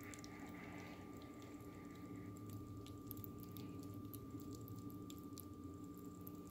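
Faint soft squishing and small scattered clicks of wet, freshly drained potato pasta clumps shifting in a plastic colander, most of the clicks in the middle, over a steady hum.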